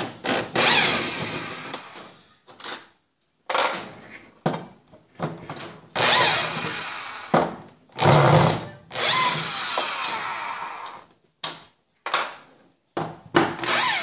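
Electric screwdriver fitted with a 10 mm socket backing bolts out of a washing machine's mechanism base. It runs in about ten bursts with short pauses between them, some lasting a second or two and fading as it runs, others only brief blips.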